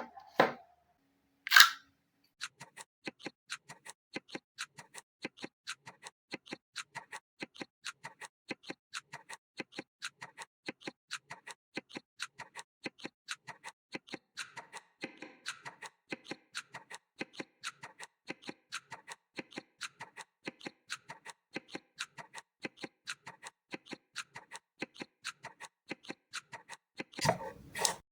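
Foley ticking: a single louder click, then a long, even run of sharp ticks, a few a second, like a clock. Louder knocks come in near the end.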